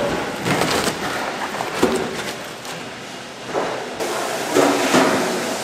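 Wet salted napa cabbages sliding and tumbling out of a tipped stainless-steel bin onto a steel table, an uneven run of rustling, slapping and thuds. About four seconds in, a steady hiss comes in under gloved hands rustling the wet leaves.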